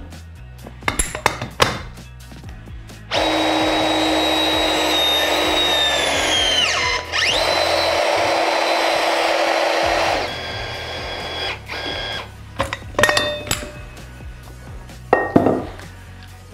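Rothenberger ROMAX NANO electromechanical press machine pressing a pipe fitting at its full 32 kN with a standard press jaw. After a few handling clicks its motor runs with a whine for about four seconds, the pitch sinking as the jaw closes under load, dips briefly, then runs about three seconds more as the jaw retracts to finish the press cycle.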